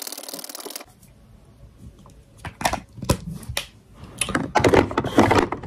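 A hand-held spray bottle misting with a fine hiss that stops about a second in, followed by a few short sharp sounds and breathy puffs.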